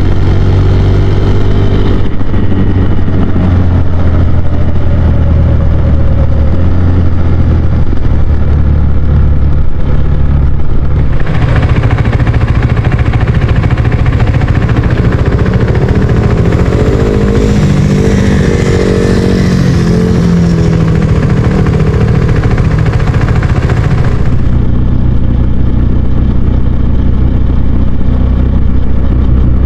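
Husqvarna Svartpilen 401's single-cylinder engine running steadily. A broad rushing noise joins for the middle stretch while the engine note shifts in pitch.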